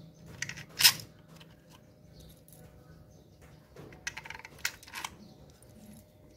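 Short clicks and knocks of small hard parts being handled on a handheld circular saw during reassembly, in two bursts: one sharp click about a second in, and a cluster of lighter clicks around four to five seconds in.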